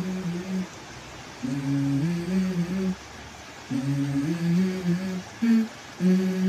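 A voice humming a slow, stepwise tune in short phrases of a second or two, with brief pauses between them, over a faint steady hiss.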